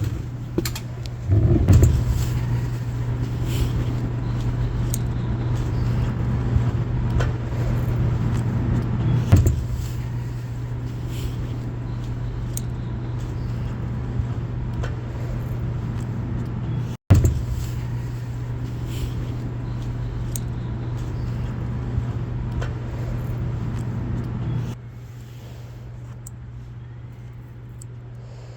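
A steady low mechanical hum, like a motor running, with scattered clicks and knocks. It drops sharply in level about three-quarters of the way through.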